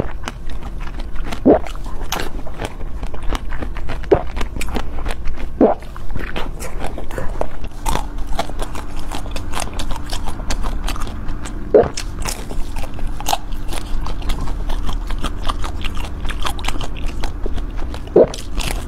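Close-miked eating of soft jelly: wet biting, chewing and mouth smacking, with many sharp clicks throughout and a few short louder wet sounds.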